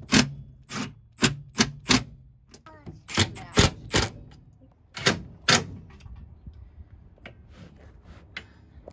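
Cordless impact driver hammering in short bursts as it runs bolts down through a steel swivel seat base, tightening them. The bursts come in three groups over the first six seconds, with only faint clicks after that.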